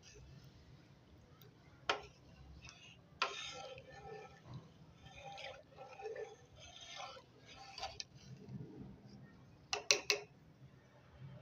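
Kitchen utensils clinking against cookware and dishes: a few sharp single clinks, then a quick cluster of three near the end.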